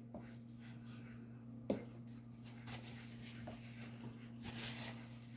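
Faint scratchy rubbing of a bristle paintbrush being handled, with one sharp click just under two seconds in, over a steady low hum.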